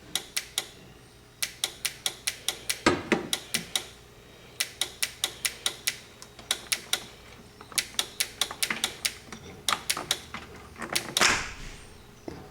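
A 1997 Toyota RAV4 horn relay ticking: rapid clicks at about six a second, in runs of a few seconds with short breaks between. The owner takes this faulty relay for the cause of the car going dead, with no dash lights and no horn. A brief scuffing noise comes through twice.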